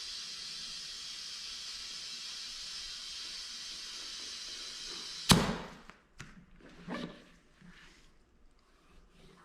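Steady hiss of compressed air filling a tube-type Hoosier racing tire on a Weld single-beadlock wheel, ended about five seconds in by one loud sharp pop as the tire's bead seats on the rim. A few light knocks follow.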